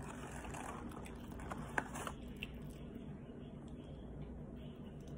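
Wet chewing and mouth sounds of someone eating, with a few sharp clicks, the loudest about two seconds in.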